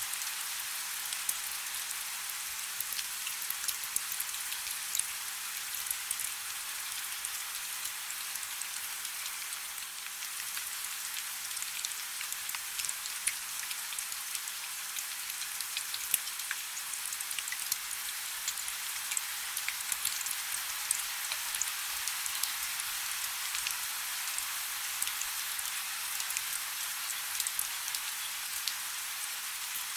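Heavy rain falling steadily: a dense, even hiss scattered with many sharp individual drop ticks.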